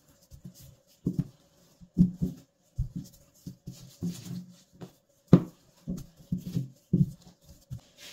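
A wooden rolling pin rolls and bumps over dough on a silicone baking mat, and the dough is pressed and patted by hand, giving irregular dull thumps. There is one sharp knock about five seconds in, and a faint steady hum underneath.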